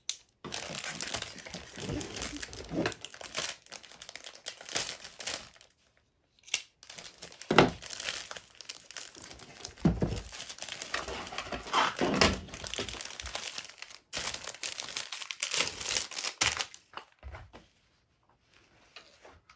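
Clear plastic packaging bag crinkling and tearing as it is cut open and a folded fabric apron is pulled out of it, in bursts with short pauses, dying away near the end.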